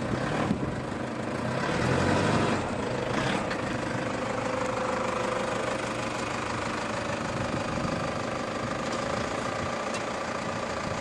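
A vehicle engine running steadily, with a louder stretch about two seconds in; it cuts off abruptly at the end.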